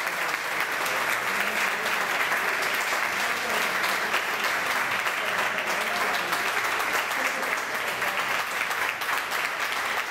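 Audience applauding steadily: many hands clapping in a dense, even patter.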